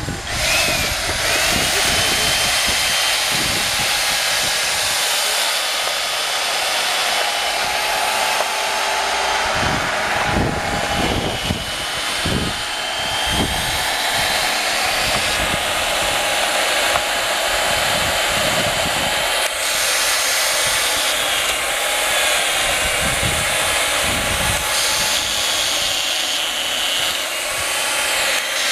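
Stihl chainsaw running at high revs as it carves into a wooden figure, its pitch wavering slightly as the cut takes and releases the load.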